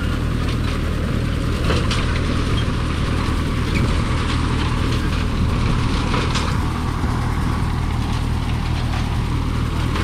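A tractor engine running steadily under load as it pulls a McCormick Deering grain binder through standing wheat, with the binder's working parts clattering. There are a few short sharp clacks a couple of seconds in and again a little past halfway.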